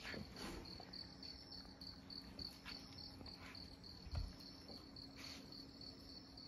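Crickets chirping: a faint, steady, evenly pulsed high chirp, with a soft low thump about four seconds in.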